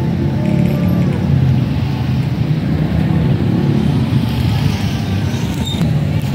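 Steady low rumble of street traffic, motor vehicles running close by.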